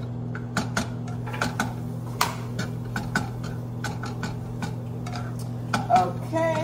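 Blue plastic slotted spatula tapping and scraping in a nonstick frying pan while scrambling eggs, in short irregular clacks, with a sharper one about six seconds in. A steady low hum runs underneath.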